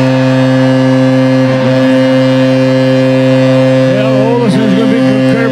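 Hockey arena goal horn sounding one long, steady blast over a cheering crowd, signalling a goal just scored. A commentator's voice comes in about four seconds in.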